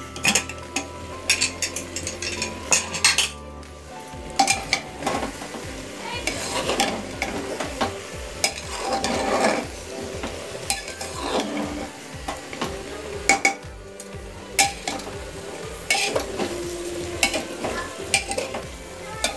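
A steel spatula stirring and scraping mixed vegetables frying in spiced oil in an aluminium pressure cooker, with a steady sizzle and repeated clinks of metal against the pot. Faint background music carries over in the first few seconds.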